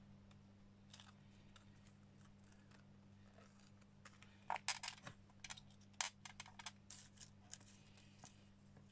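Faint clicks and light ticks from handling a paper craft tag with a small metal charm and chain attached, mostly in the second half, over a low steady hum.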